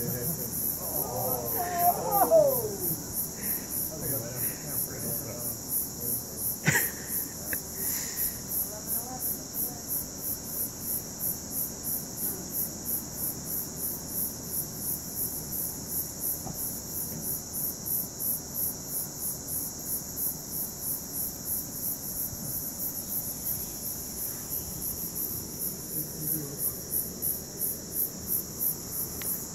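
Night insects chirping in a steady high-pitched chorus that pulses about two to three times a second, over a constant high hiss. Brief voice-like sounds about two seconds in are the loudest moment, and a single sharp click comes about seven seconds in.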